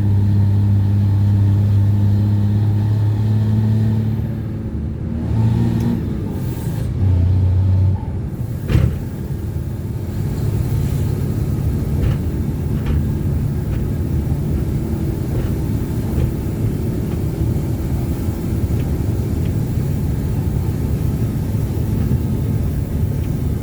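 Ford Cargo 2428 truck's diesel engine rumbling. It holds a strong, steady note for the first few seconds, then the note drops and shifts between about four and eight seconds in. A single knock comes near nine seconds, after which the engine runs on as a rougher, lower rumble.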